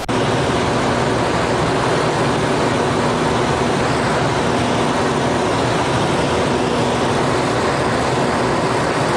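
Single-engine crop-duster's propeller engine running steadily at high power, heard under a heavy, even rush of wind noise. A short hiss of TV static comes right at the start.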